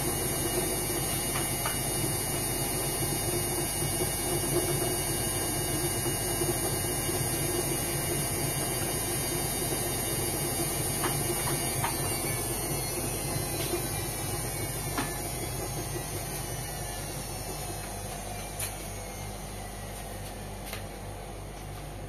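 Front-loading washing machine running: a steady motor hum with a high whine and a few light clicks. From about halfway, the whine falls in pitch and the sound fades as the drum motor slows down.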